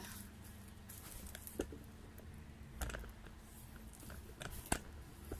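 A few scattered light knocks and clicks from things being handled, the sharpest one near the end, over a faint low hum.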